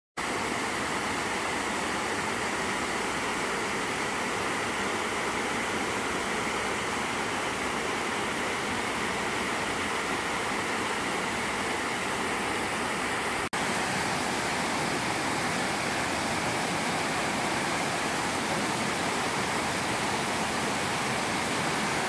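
Steady rush of water from small waterfalls and rapids tumbling over rocks, cutting out for an instant a little past halfway and returning slightly louder.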